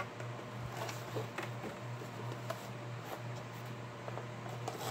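Faint rustling and small clicks of a cardboard and plastic toy-kit box being handled and its plastic-packed contents pulled out, over a steady low hum.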